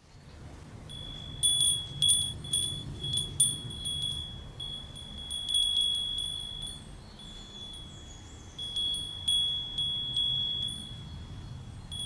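Small brass bells on a hanging string of painted wooden beads, ringing in irregular clusters of clear, high strikes as the string sways, over a steady low rumble.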